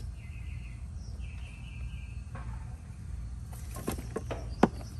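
Several sharp clicks and light metal handling near the end, the loudest about four and a half seconds in: meter test leads and alligator clips being handled on a new dual run capacitor before it is tested. A steady low hum runs underneath.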